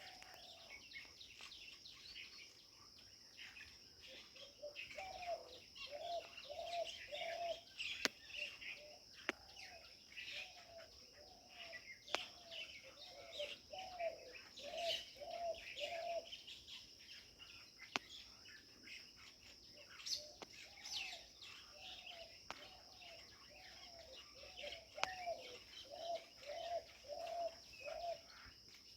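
Several birds chirping in a pipal tree over a steady high insect drone. Runs of a lower, short repeated call come about twice a second, with a few sharp ticks here and there.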